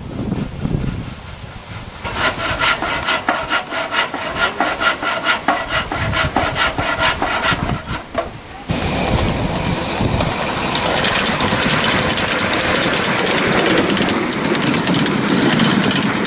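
Handsaw cutting a wooden board in quick, even strokes, about four a second, for several seconds. Then a sudden change to the steady running noise of a miniature Class 66 locomotive.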